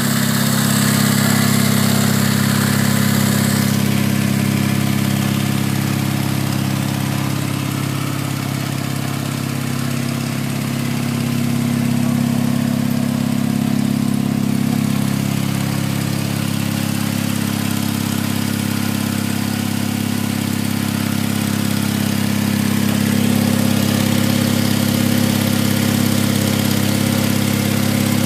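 Yamaha motorcycle engine idling steadily.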